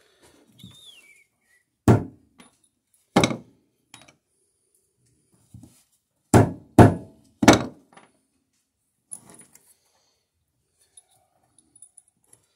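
Claw hammer striking old steel nails laid on wooden boards to straighten them for reuse: five loud blows, two about a second apart, then three in quick succession. Light clinks of the nails being handled follow near the end.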